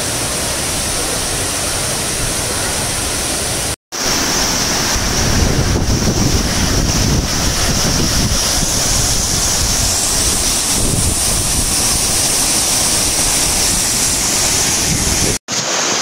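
Rain-swollen waterfall rushing at close range, a loud steady wash of falling water, with spray and wind buffeting the microphone. The sound cuts out briefly twice.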